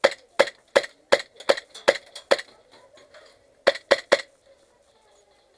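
Airsoft gun firing single shots close by: seven sharp cracks at about three a second, then a pause and three more in quick succession.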